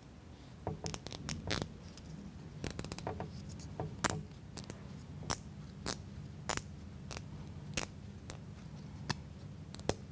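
Irregular sharp clicks and taps of small laser-cut plywood model-kit parts being handled and pressed together by hand, a washer being fitted onto a pin.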